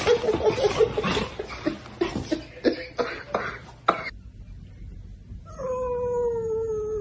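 A dog scuffling playfully on a quilted blanket, with rustling and short vocal sounds, for the first few seconds. Then a calico cat gives one long, slightly falling yowl near the end.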